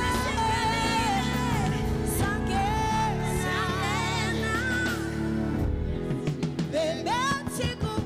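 A woman singing long, held and bending notes into a microphone over a live band with bass guitar. The band's low notes drop away near the end.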